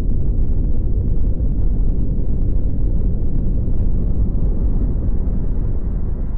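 Loud, steady deep rumble with no beat or voice, beginning to fade near the end.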